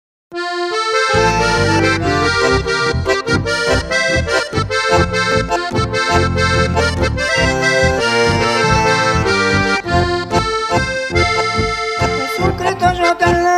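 Instrumental music led by an accordion melody over a steady, rhythmic bass beat. It starts a moment in and builds as the bass enters about a second later.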